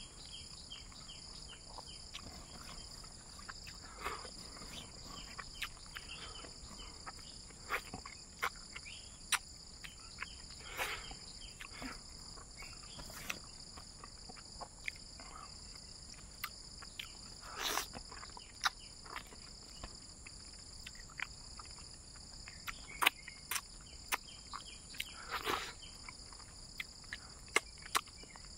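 Close-up sounds of a person eating fish and rice with the fingers: frequent small clicks and mouth sounds of chewing and lip smacking, a few louder ones in the second half. Behind them, a steady high-pitched chorus of insects trilling.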